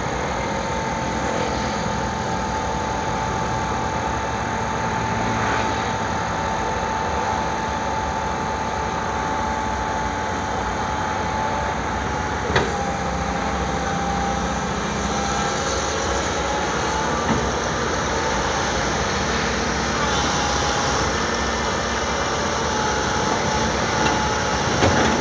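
Komatsu hydraulic excavator running steadily as it digs and loads, with a steady high whine over the engine noise and a single sharp clank about halfway through.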